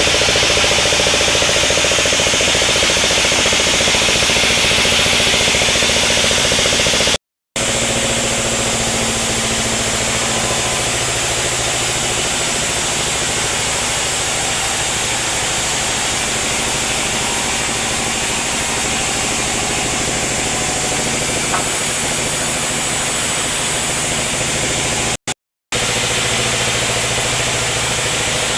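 Sawmill machinery running steadily: an engine-driven log saw, a loud even noise with a steady engine hum beneath it. The sound drops out to silence twice, briefly, about a third of the way in and near the end.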